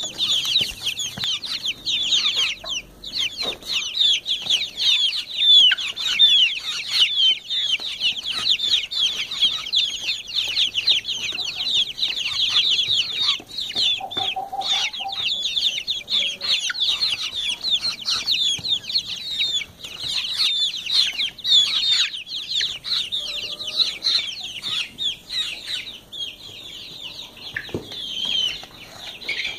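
A brood of four-week-old Light Sussex chicks peeping: many overlapping short, high chirps, each falling in pitch. The peeping thins out near the end.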